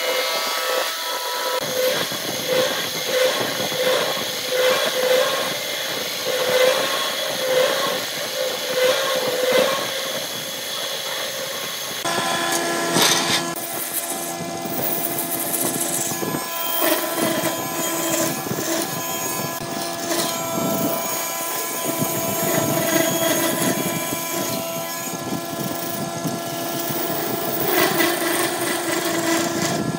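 Wood lathe running while a drill bit in a chuck bores into a spinning wooden cup blank, a steady hum with a pulsing grind. About twelve seconds in it changes abruptly to a hand-held gouge cutting and scraping the inside of the spinning cup over the lathe's steady hum.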